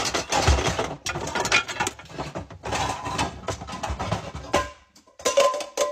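Pots and pans banged and clattered together in a rapid, uneven run of metallic crashes, which stops about a second before the end. Just after, music with a percussive beat begins.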